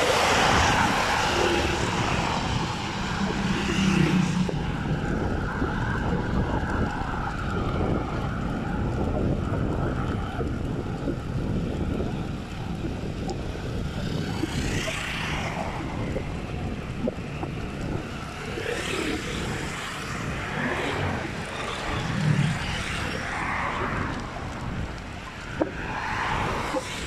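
Wind rushing over a phone microphone while riding a bicycle, with tyre noise on the road and several swells as traffic passes alongside.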